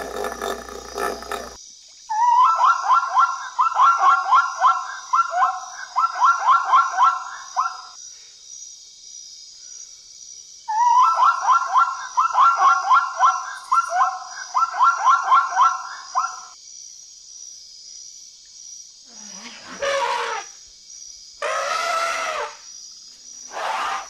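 Zebra calling in two bouts of rapid, high barking yelps, each several seconds long. Near the end come several long elephant trumpet calls.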